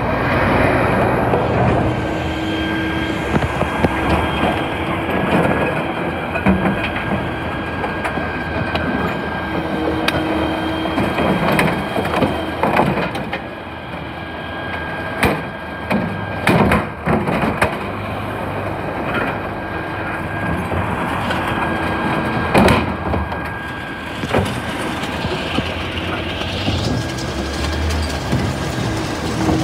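Scania refuse truck running while its rear bin lifter tips a wheelie bin into the hopper, with a steady high whine. Sharp cracks and thuds come as the waste drops in, loudest about halfway through and again a few seconds later.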